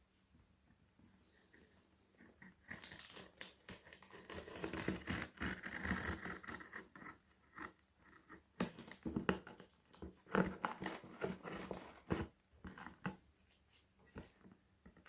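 Packaging being handled and opened: plastic and paper crinkling and tearing in irregular bursts from a few seconds in until near the end.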